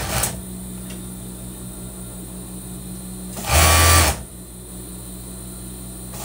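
Marbor industrial overlock (serger) machine: its motor hums steadily, and one short run of stitching, lasting under a second, starts about three and a half seconds in.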